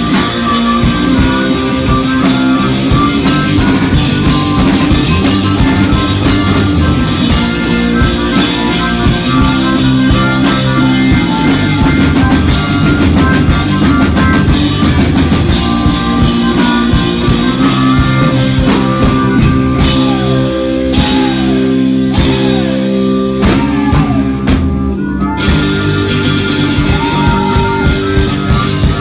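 Live rock band playing loudly: drum kit, electric guitars and bass through amplifiers, with a few short sliding notes about twenty seconds in.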